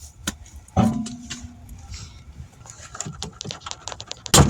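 Scattered clicks and light metallic clinks of tools and parts being handled at a car wheel, quickening near the end, with a short loud clatter at the very end.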